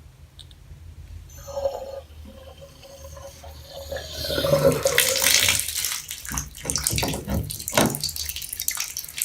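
Water under pressure escaping from a bathtub faucet's valve as the cartridge nut is loosened. A thin whistling tone starts about a second in, then loud hissing water from about four seconds, followed by irregular splashing and knocks. The supply is still on, which the owner puts down to not turning it off hard enough.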